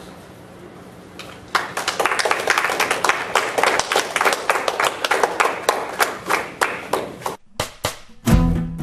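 Audience applauding, starting about a second and a half in and breaking off suddenly near the end, where acoustic guitar music begins.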